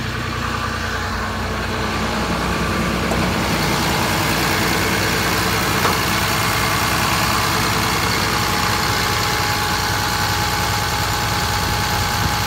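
A 2008 Dodge Ram 3500's 6.7-litre Cummins inline-six turbo diesel idling steadily. It gets somewhat louder over the first few seconds, then holds even.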